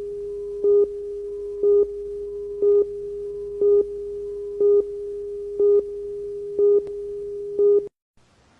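A steady electronic tone with a louder beep on top of it once a second, eight beeps in all, cutting off suddenly near the end; faint hiss starts just after.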